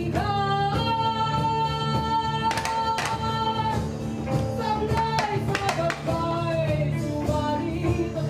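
Singing over a musical accompaniment, the voice holding one long note from about a second in, with a steady low drone beneath and a few sharp knocks.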